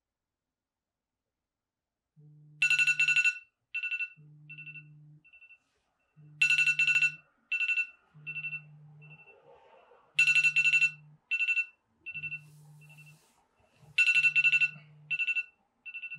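A phone alarm going off: a high electronic ringtone, one loud note followed by a few fading repeats, returning about every four seconds, with the phone vibrating in one-second buzzes between. It starts about two seconds in, out of silence.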